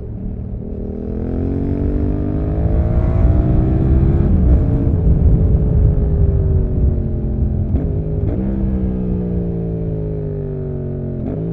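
Yamaha MT-07's parallel-twin engine through an SC-Project exhaust, heard onboard: it accelerates with the pitch rising for about four seconds, then falls away as the throttle is rolled off. Two quick rev blips come around eight seconds in, and another near the end.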